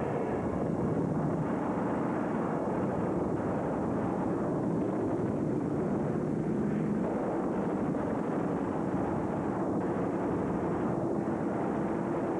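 Aircraft engine noise: a steady, dense rumble with no distinct bangs or shots.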